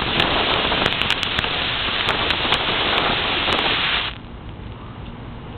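Ground fountain firework spraying, a loud steady hiss full of sharp crackles and pops, which cuts off suddenly about four seconds in.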